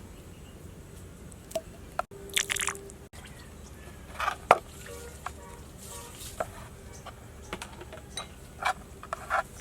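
Food-preparation sounds: scattered sharp clicks and taps, with short wet, squishy bursts of liquid.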